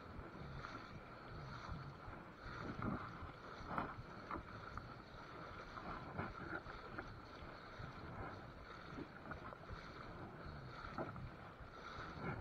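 Shallow river water sloshing and rippling around the legs of someone wading, with light wind on the microphone.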